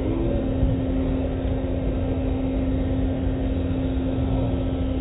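Automatic tunnel car wash heard from inside the car: water spraying and running down the windshield while the wash machinery runs with a steady hum.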